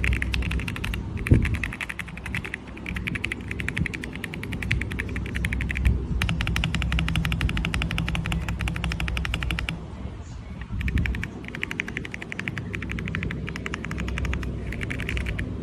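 Royal Kludge R75 mechanical keyboard being typed on very fast, a dense rapid clacking of keys in runs of a few seconds with brief pauses between them.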